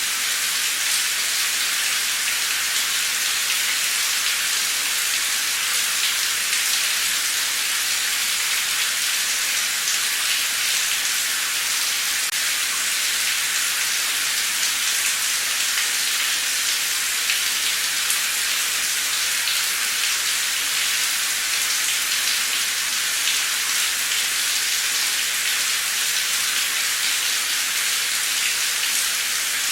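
Heavy, pouring rain falling steadily, a dense even hiss of drops with fine crackle and no change in intensity.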